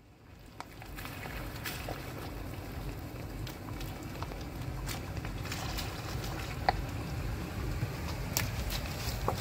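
Lifted Toyota Sequoia's V8 running as the truck crawls toward the camera over a rocky, muddy track, growing louder as it nears. Tyres crunch gravel and slosh through mud, with a few sharp clicks of stones, the loudest about two-thirds through.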